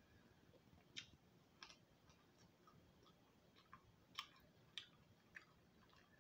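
Near silence with about ten faint, soft clicks at uneven spacing: mouth and finger sounds of someone eating fried guinea pig by hand, chewing and picking the meat apart.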